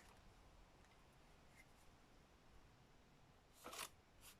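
Mostly near silence, with a brief rustle of paper being handled about three and a half seconds in and a fainter one just after.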